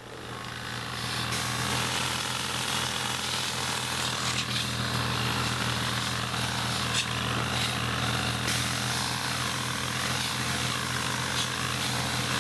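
A motorised pole-mounted olive harvester running steadily: a constant motor hum under the rustling and rattling of its head beating through olive branches.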